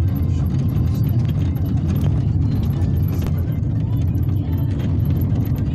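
Car cabin noise while driving over a rough, dusty road-works surface: a steady low rumble of tyres and engine, with frequent small rattles and knocks from the car jolting over the broken road.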